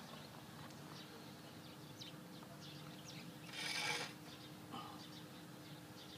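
Metal spirit level scraped briefly across a concrete slab once, a little past the middle, as it is moved to check the slab's level. A faint steady hum runs underneath.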